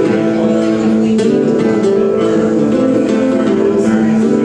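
Acoustic guitars playing a song, chords picked and strummed at a steady level.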